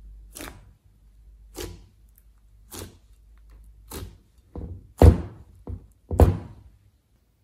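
Fingers poking into thick slime, each press giving a sharp wet pop, six of them about a second apart with a few smaller ones between, the last two loudest.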